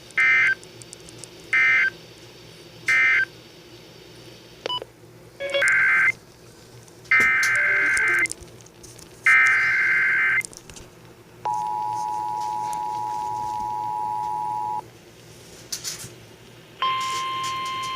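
Emergency Alert System data tones on a broadcast radio: three short bursts of warbling digital data, the end-of-message code, then three longer data bursts, a new alert header. Then the EAS two-tone attention signal sounds steadily for about three seconds. Near the end a single steady tone starts and holds.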